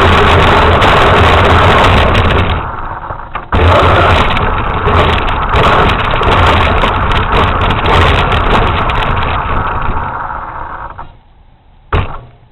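RC truck running on ice, its motor and drivetrain sounding loud and steady. It cuts out for about a second a couple of seconds in, starts again, then fades away near the end, followed by a single sharp click.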